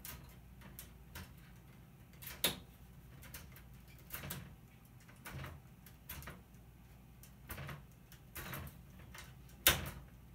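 Scattered clicks and scrapes of metal and plastic as LED backlight strips are pried and bent loose from a TV's metal backlight tray, with two sharper snaps, one about two and a half seconds in and one near the end.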